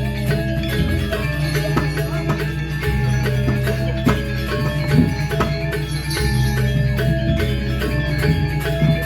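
Balinese gamelan music: bronze metallophones and gongs playing an interlocking, repeating melody of struck, ringing notes.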